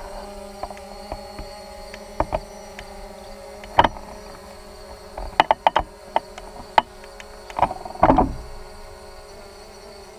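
Holy Stone HS700D quadcopter's motors and propellers humming steadily as it hovers, heard from the GoPro mounted on it. Sharp knocks and rattles come through several times, the loudest cluster near the end.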